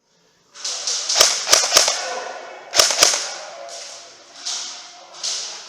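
Airsoft guns firing single shots: a quick run of three sharp cracks about a second in, two more a second and a half later, over a steady hiss.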